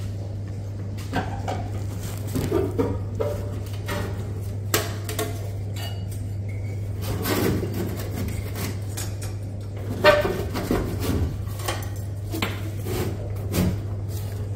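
Metal clinks, knocks and scrapes as a new main heat exchanger is slid into a Chaffoteaux Britony combi boiler and worked into place against its pipes and sheet-metal casing. A sharper knock comes about ten seconds in, and a steady low hum runs underneath.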